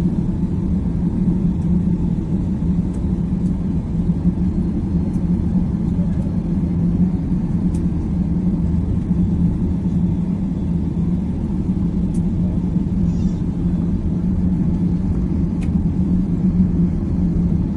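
Steady low rumble and drone inside an airliner's cabin as the plane rolls on the ground after landing, with a constant hum under the noise.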